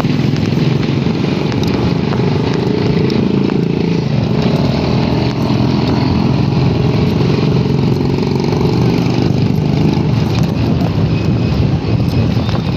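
Steady, loud engine and road noise of a moving vehicle, heard from on board while riding along the road.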